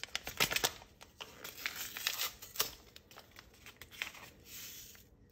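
A small paper sachet of vanilla sugar being torn open and crinkled: a run of short crackling rips, most of them in the first half, with a few more crinkles later.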